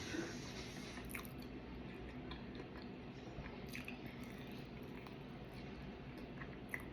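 Close-up chewing with wet, squishy mouth sounds and a few small lip clicks, over a steady low background hum.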